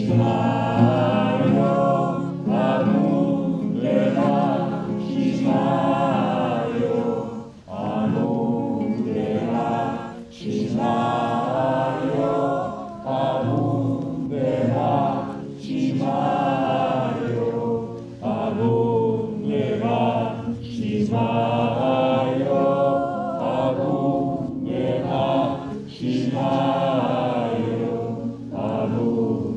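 Voices singing a devotional mantra chant in long sung phrases, with a steady low drone beneath.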